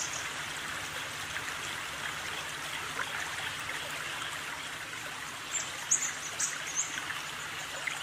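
Steady trickling of a stream, with a few short, high-pitched peeps a little past halfway.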